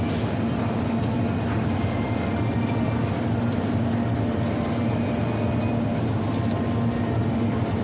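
Steady ambience inside a large retail store: a constant wash of indistinct background noise with a low steady hum and faint scattered clicks.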